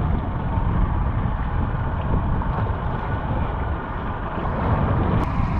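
Wind rumbling steadily on the microphone over the wash of choppy open sea.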